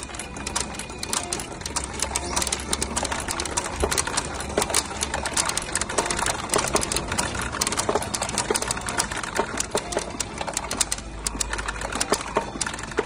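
P Tenryu 2 pachinko machine in play: a fast, continuous clatter of small steel balls being fired and rattling down through the pins.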